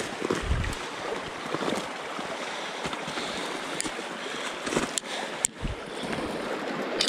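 Steady flowing-water noise of a stream, with footsteps crunching through snow and brush and a few sharp knocks and low thumps from handling or stepping, the clearest about five seconds in and near the end.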